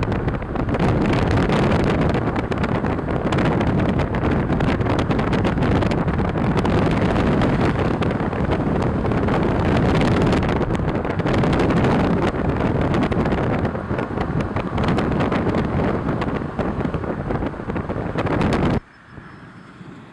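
Strong wind buffeting the microphone held at a car window, a rough, gusty rush. Near the end it cuts off suddenly to a much quieter steady hiss.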